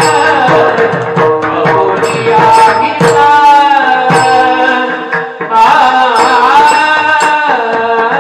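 Marathi kirtan singing: a male voice sings a long, bending melodic line over a steady held drone, with mridang strokes keeping time underneath.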